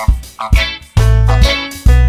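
Background music with a rhythmic bass line, about two bass notes a second, under pitched instrument notes.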